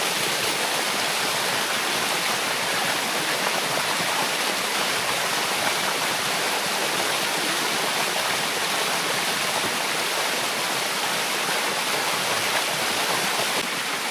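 Water rushing steadily down the limestone cascades of a waterfall.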